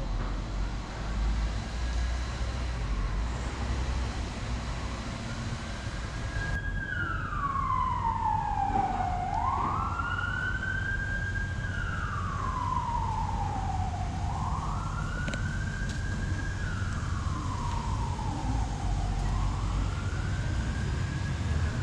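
Emergency vehicle siren wailing: a slow fall and rise in pitch that repeats about every five seconds, faint at first and louder from about a third of the way in, over a low steady rumble.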